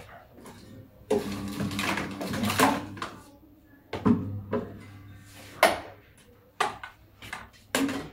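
Assorted objects in a heap being handled and shifted by hand: irregular knocks, clatters and rattles, with a longer run of clattering and some ringing between about one and three seconds in.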